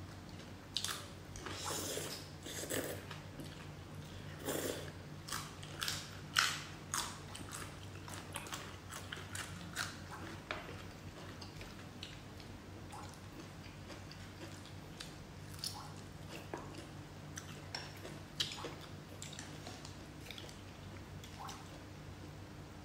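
Close-miked eating sounds from two people eating spicy noodles with chopsticks: noodle slurps, wet chewing and biting in short sharp bursts, thickest in the first ten seconds and sparser after. A steady low hum runs underneath.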